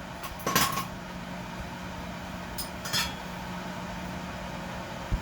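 Metal clinks while a freshly sharpened mower blade and its mounting hardware are handled for refitting: one sharp clank about half a second in, then two lighter clinks about three seconds in, over a steady low hum.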